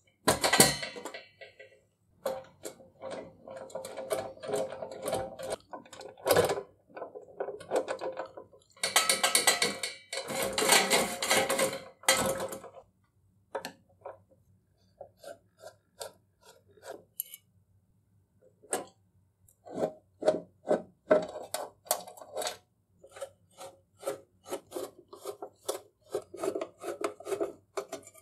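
Parts of a rusty antique sheet-metal kitchen scale being handled and taken apart by hand: scattered light metallic clicks and knocks, with a longer stretch of rubbing and scraping about a third of the way in.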